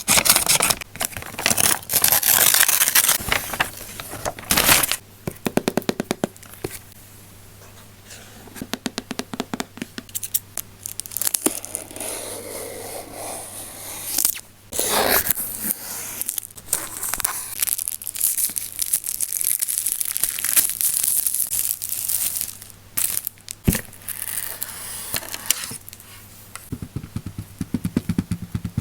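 Packaging being handled: crinkling, rustling and tearing in irregular bursts, with a quieter spell partway through.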